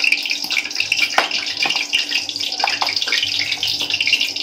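Steady hiss in the kitchen, with a few short light clicks of a spoon against a plastic spice box as powdered spice is scooped out.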